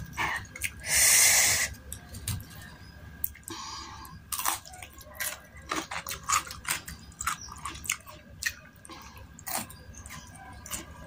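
Close-up chewing and crunching of cucumber slices dipped in spicy chili sauce, with many short sharp crunches and wet mouth sounds. A loud hiss lasting under a second comes about a second in.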